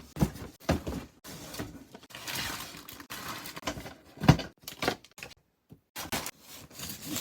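Boxes being handled and stacked: a series of knocks and thuds with a stretch of rustling, the loudest thud a little past four seconds in.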